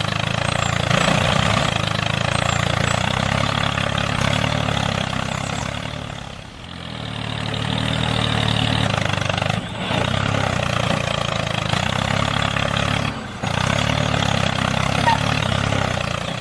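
A tractor engine running steadily. It fades down and back up about six and a half seconds in, and drops out for a moment twice later on.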